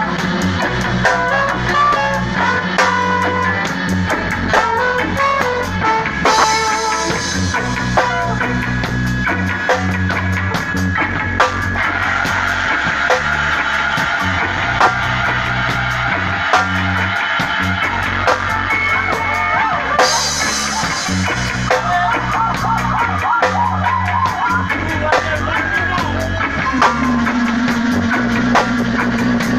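A band playing live: drum kit with cymbal strikes, electric bass and electric guitar, joined by saxophone and another horn playing held melodic lines through the middle of the passage.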